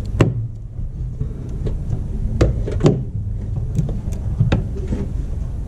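A few light knocks and clicks, as of parts being handled under the hood, over a steady low rumble.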